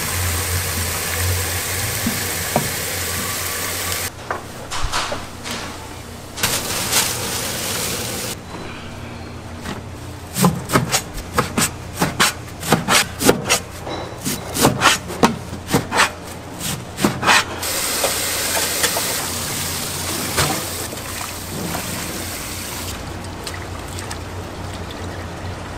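Kitchen work sounds: water running from a tap, then a quick run of sharp clatters and knocks of dishes or utensils, then the water running again.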